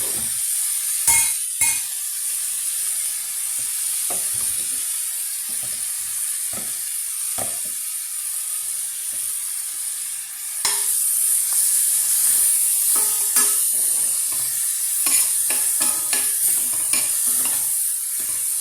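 Diced bacon sizzling in the butter left in a frying pan, with a steady high hiss. A utensil knocks and scrapes in the pan as it is stirred, twice loudly about a second in and more often in the second half.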